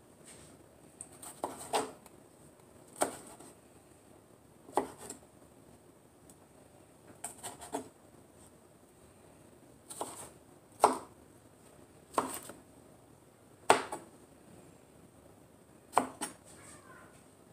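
Kitchen knife slicing a tomato, the blade knocking on the cutting board with each cut: sharp single knocks a second or two apart, some in quick pairs.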